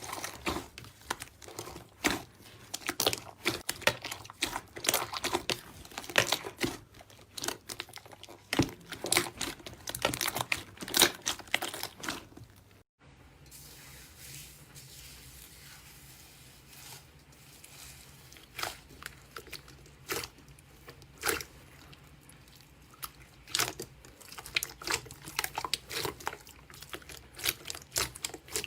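Slime being squeezed and pressed by hand, making dense crackling and popping. About halfway through it cuts off abruptly, and after that the pops and clicks are sparser and quieter.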